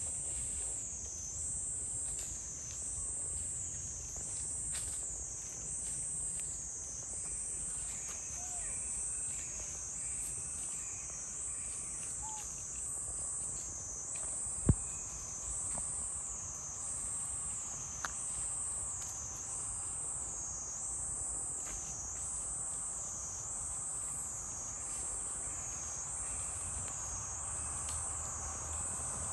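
A high-pitched insect chorus buzzing steadily, swelling and fading in a slow even rhythm about once every second and a half. About halfway through there is one sharp knock.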